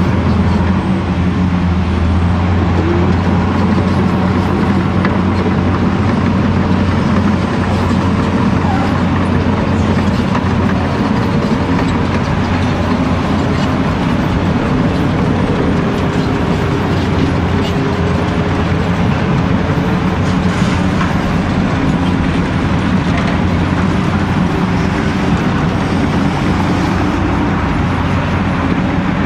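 Caterpillar 345C L hydraulic excavator at work, its large diesel engine running under load with a steady low drone while it digs and loads, together with the engines of the other heavy machines close by. A few faint knocks of the bucket and gear sound over the drone.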